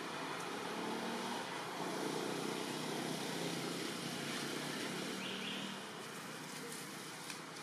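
Distant engine noise, a steady hum that swells for several seconds and eases off about six seconds in, over outdoor ambience. A short rising chirp sounds about five seconds in.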